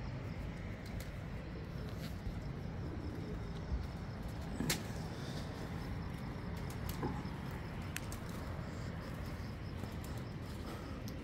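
Domestic pigeons in a rooftop loft cooing faintly over a steady low background hum, with a few sharp clicks, the loudest about halfway through.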